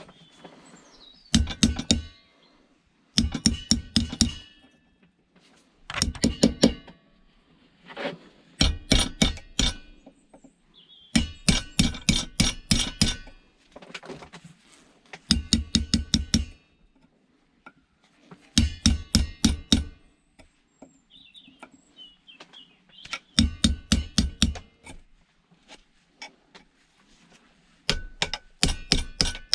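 Metal being struck in quick runs of about five or six blows a second, with a metallic ring. The runs come about nine times, with short pauses between them.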